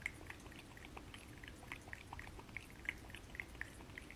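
Cat licking and lapping at the mouth of a plastic water bottle: faint, wet tongue clicks, about three or four a second.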